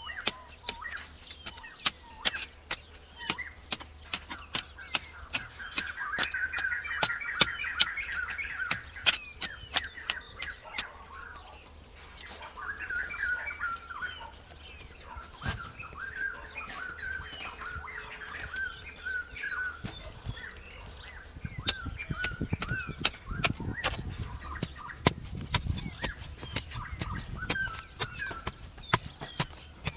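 Birds chirping and trilling over a steady run of sharp clicks and knocks from a hand tool breaking up dry, clumpy soil. Heavier low thuds come in the second half.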